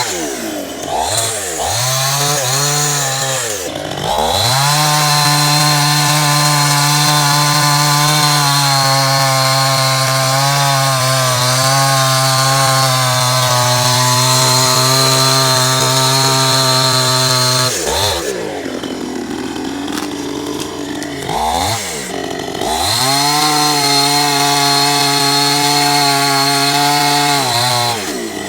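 Chainsaw engine running at high revs, held steady for long stretches, with the engine speed sagging and climbing back several times in the first few seconds and again for a few seconds in the last third.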